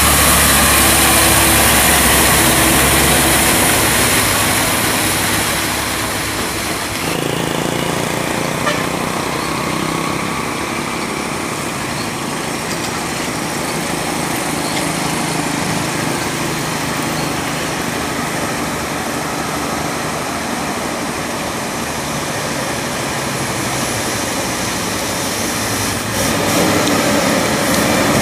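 Diesel engines of heavily loaded log trucks running under load as they pass: a FAW truck loud and close at first, then quieter engine noise from trucks farther off, with a CAMC truck drawing near and getting louder near the end.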